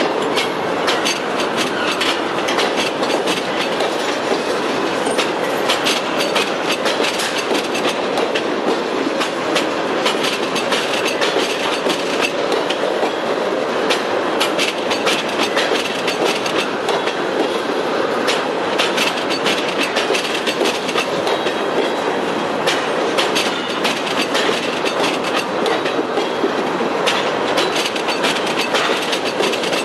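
Freight cars rolling slowly past at close range, empty centerbeam flatcars and then tank cars: a steady rumble of steel wheels on rail, with frequent sharp clicks at the rail joints.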